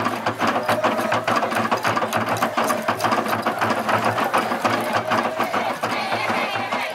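Fast, steady beating of traditional Papua New Guinean dance percussion, with a held sound of voices beneath it; it stops suddenly near the end.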